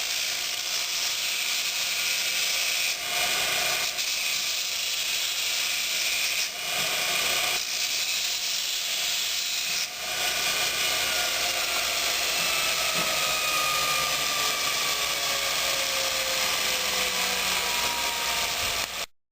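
Multitool 2x36-inch belt grinder attachment on a bench grinder, grinding metal with a steady, loud rushing hiss. The sound breaks off briefly about 3, 6½ and 10 seconds in, as the workpiece comes off the belt.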